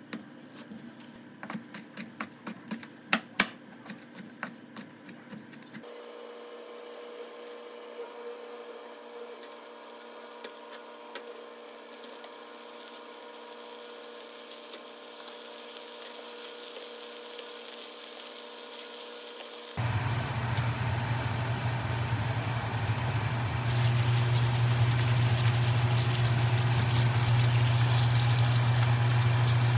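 A kitchen knife chops mushrooms and cabbage on a plastic cutting board, a run of sharp taps over the first few seconds. Then food sizzles in a frying pan, growing steadily louder. From about two-thirds of the way through, a pan of sauce bubbles over a steady low hum.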